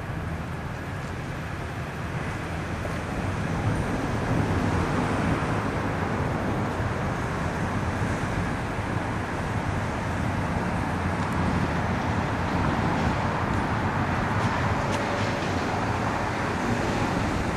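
Steady urban road traffic noise, a rumble of passing vehicles that gets louder a few seconds in and then holds.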